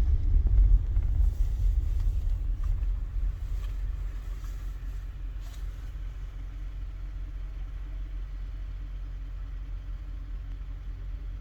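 A vehicle's engine and low rumble as it rolls along, easing off about four seconds in and settling to a steady idle.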